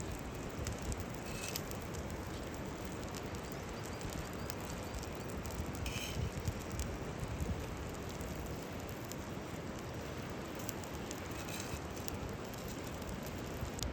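Wood cooking fire crackling: a steady hiss with scattered small pops and ticks.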